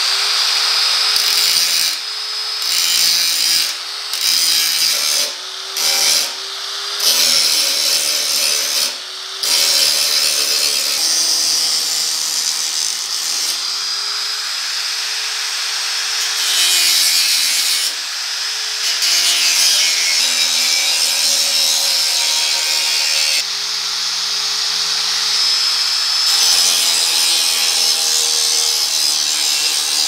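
Electric angle grinder grinding a weld bead flush along a sheet-steel patch-panel seam. It breaks off briefly several times in the first ten seconds, then grinds almost without a break.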